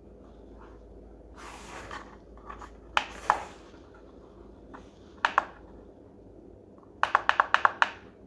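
Clicks of the alarm clock's buttons pressed while setting the time: a brief rub of handling first, then single clicks, a quick pair, and near the end a fast run of about seven presses.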